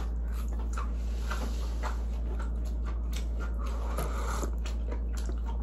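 Faint eating sounds: a metal spoon lightly clicking against a ceramic bowl and a short sip from the bowl about four seconds in, over a steady low hum.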